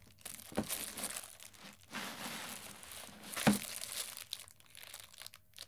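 Crinkling rustle of a jewellery design album being fetched and opened on a desk, with two light knocks, about half a second and three and a half seconds in.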